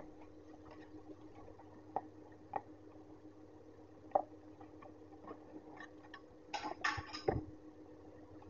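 Cardboard box and paper packing being handled during unpacking: scattered light taps and clicks, then a short burst of crinkling and rustling about six and a half seconds in as the plastic fan comes out. A steady low hum sits underneath.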